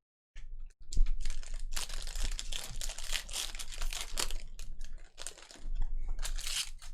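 Trading-card pack wrappers being torn open and crinkled by hand: a dense run of crackling and tearing that starts about half a second in.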